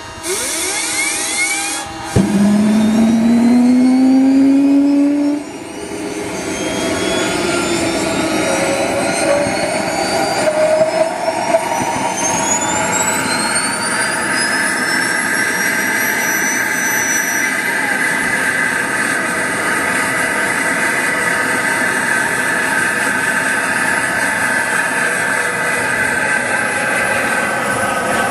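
SWB Mamba model jet turbine starting up: a loud rising tone for about three seconds, then a high whine that climbs steadily for about ten seconds as the turbine spools up, settling into a steady running note.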